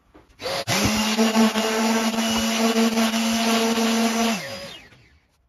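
Random orbital sander with a 240-grit disc sanding a carved oak board. It is switched on about half a second in, runs at a steady hum for about four seconds, then is switched off and winds down with falling pitch.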